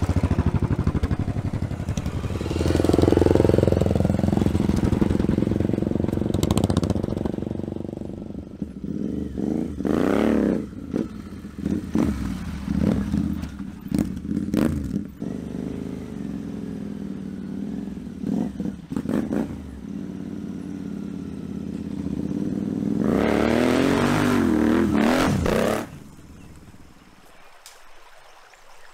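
Scrambler-style motorcycle engine running and being ridden off, its pitch climbing and falling again in several revving surges as the throttle is opened and closed. The engine sound cuts off suddenly near the end, leaving only quiet background.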